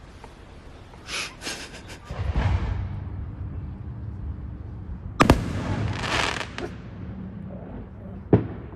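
A few sharp knocks and thumps: clicks about a second in, a loud knock just past five seconds and another sharp knock near the end, over a low hum and some rustling.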